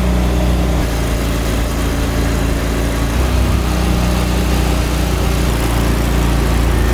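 Boat engine running hard at steady throttle, driving the boat through shallow water, with a slight shift in pitch about a second in and again around three seconds.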